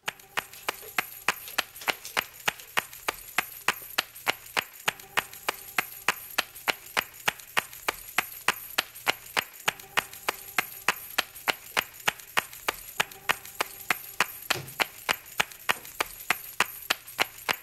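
Rapid, even ticking, about four sharp ticks a second, over a faint steady low hum.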